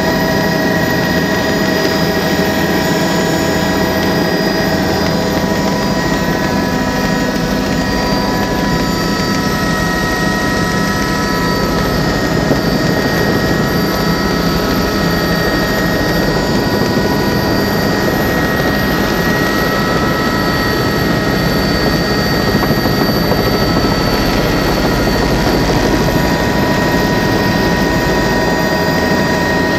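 Helicopter in flight heard from inside the cabin: a loud, steady engine and rotor drone with several high, steady whining tones over it.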